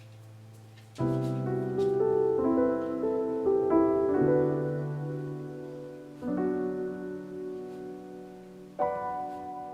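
Soft background piano music: chords and a short melodic run, with new chords struck about a second in, near six seconds and near nine seconds.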